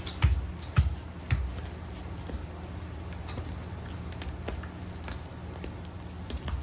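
Mame shiba puppies playing with toys: three knocks in the first second and a half, then light scattered clicks and rustling over a low steady hum.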